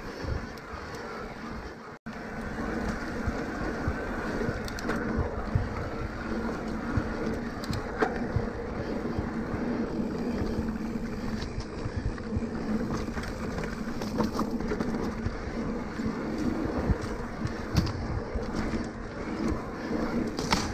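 Cannondale Moterra 2 electric mountain bike being ridden: steady tyre rolling noise and wind on the camera, with scattered clicks and rattles from the bike.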